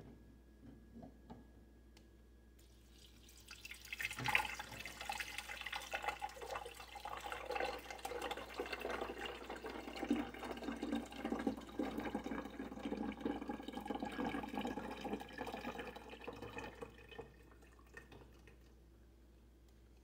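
A stream of water poured into the top fill reservoir of a HAVA R01 compact countertop dishwasher, splashing and gurgling into the tank. It starts about three seconds in and stops a few seconds before the end.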